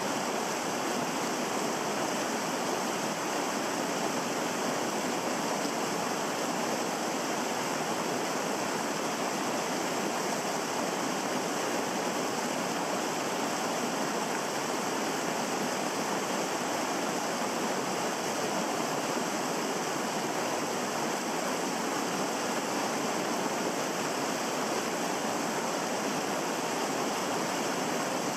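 Mountain stream water rushing over rocks, a steady, unbroken rush.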